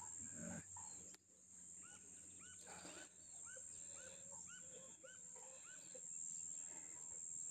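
Faint open-air ambience: a bird repeats a short rising-and-falling chirp about three times a second for a few seconds in the middle, over a steady high-pitched whine.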